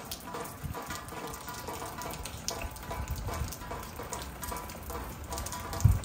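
Rain falling on garden foliage and a shed roof: a steady hiss dotted with many small drop ticks. A low thump comes near the end.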